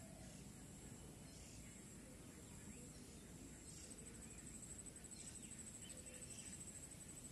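Faint field ambience with a few soft bird chirps. From about halfway through, a high, fast-pulsing insect trill joins in.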